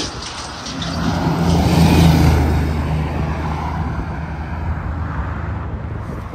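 A heavy truck driving past on the interstate: a low engine drone with tyre and road noise, swelling to its loudest about two seconds in, then slowly fading.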